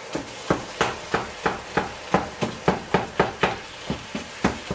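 Slotted spatula chopping and breaking up ground turkey in a frying pan, knocking against the pan about three times a second, with the meat sizzling under it.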